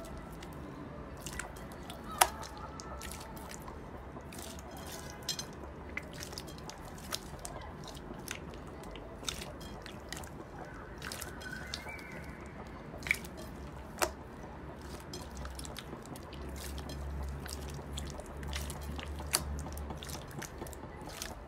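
Hands squeezing and kneading clear slime mixed with a white fluffy material in a glass bowl. The slime gives off irregular wet clicks and small pops, a few of them sharper than the rest.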